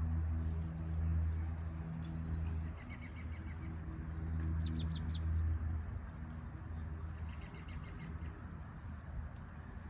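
Robin singing in short phrases: a quick run of about eight repeated notes, four high falling whistles near the middle, then another rapid run, all over a low steady hum.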